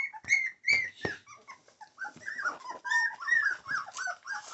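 American Pit Bull Terriers whining in a rapid string of short, high cries, several a second. There are a few sharp knocks in the first second.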